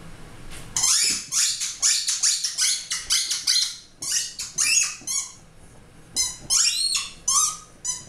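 Blue spiky rubber squeaky ball squeaking shrilly over and over in quick runs as a puppy bites and chews it, with a short pause around the middle.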